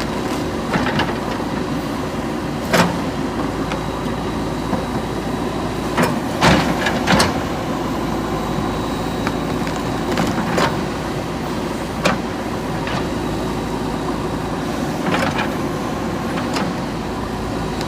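Diesel engine of a JCB 3DX backhoe loader running steadily under work, with a series of sharp metallic knocks and clanks from the working equipment, the loudest a cluster of three about six to seven seconds in.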